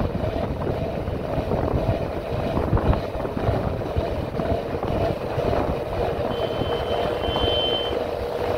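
Motorcycle engine running at a steady riding speed, with wind buffeting the microphone. Near the end a thin, high, steady tone sounds for about a second and a half.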